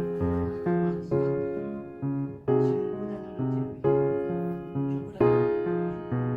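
Background keyboard music: a gentle melody of chords struck about once a second and left to fade, over a bass line.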